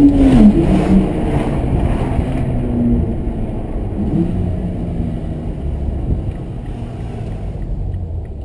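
BMW E90 3 Series engine and exhaust revving hard, then the revs drop sharply about half a second in as the driver lifts or shifts. The pitch steps again about four seconds in, then the engine settles to a steadier, lower drone that gradually gets quieter.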